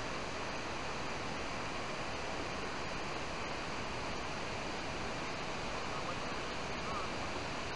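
Steady, even hiss-like outdoor background noise with no distinct sounds in it.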